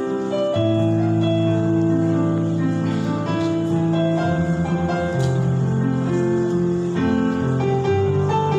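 A church choir with piano accompaniment performing a slow hymn in sustained chords that change every second or two.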